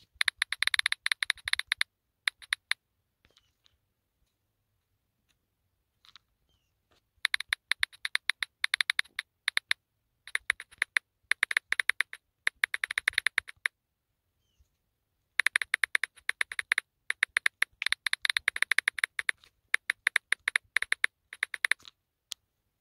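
Quick key-press clicks from typing on a phone's on-screen keyboard, in three runs of rapid taps with short pauses between them.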